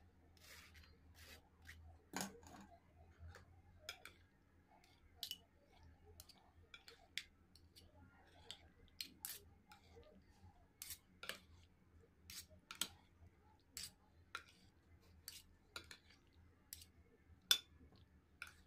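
Metal spoon clicking and scraping against a bowl and container as cooked elbow macaroni is scooped and spread, a short sharp tick every second or so, one louder near the end.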